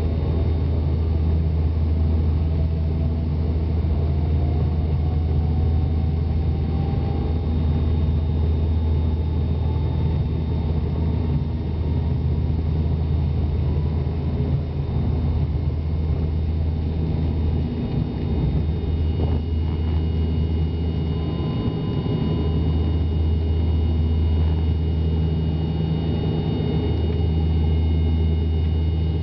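ATR turboprop airliner's engines at takeoff power, heard inside the cabin by the wing: a loud, steady drone with a deep hum, and a faint tone that rises in pitch over the first ten seconds as the takeoff roll gathers speed. The low hum wavers about two-thirds in, around lift-off.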